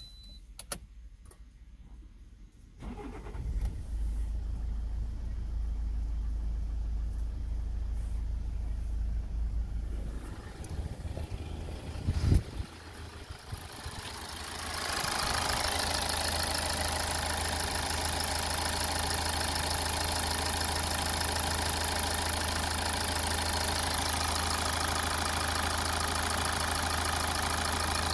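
Toyota 2AD 2.2-litre four-cylinder turbodiesel is cranked and starts about three seconds in, then settles to a steady idle. About halfway there is a single sharp knock. After that the idle is heard close up in the open engine bay, louder and fuller.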